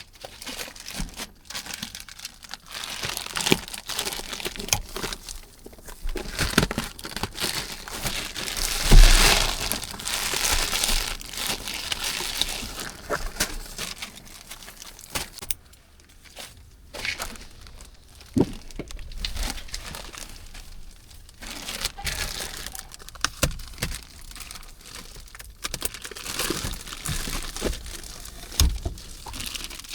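Plastic protective wrapping being peeled and crumpled off a new car: irregular crinkling and tearing with scattered sharp crackles, loudest about nine seconds in.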